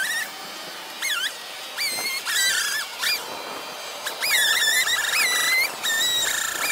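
Sped-up recording of a chainsaw, its pitch raised to a high squealing whine that holds steady in stretches and dips and rises sharply in between, with short quieter gaps.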